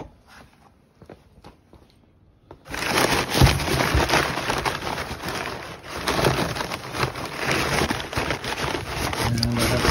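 A few faint taps, then, from about a third of the way in, crumpled packing paper rustling and crackling loudly as hands dig through it in a cardboard box.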